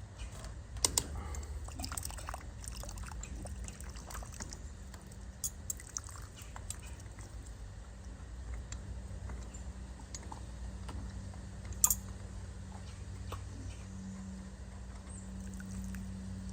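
Water trickling and dripping from a pig-pen water line, with a few sharp clicks and taps of plumbing fittings being handled, over a steady low rumble.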